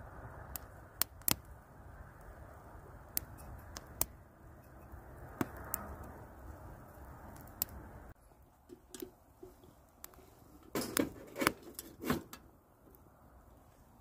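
Wood fire crackling, with scattered sharp pops over a low steady hiss. The hiss drops away partway through, and a quick cluster of louder pops and knocks comes near the end.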